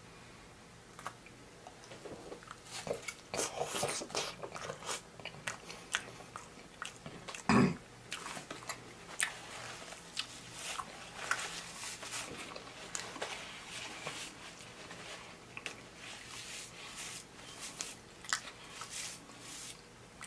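A person chewing a mouthful of Wingstop voodoo fries (fries with cheese sauce), with many short mouth clicks. One short loud sound comes about seven and a half seconds in.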